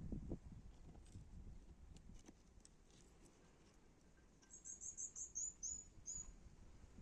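A small bird singing one quick phrase of about eight short, high, down-slurred notes, a little past halfway, over faint outdoor ambience. A few soft low thumps sound at the very start.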